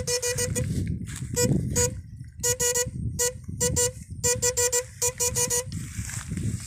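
Homemade backpack electrofishing shocker buzzing in rapid clicking bursts with a steady hum, switched on and off several times as its poles are worked in the water. It stops about five and a half seconds in, leaving low sloshing and rustling.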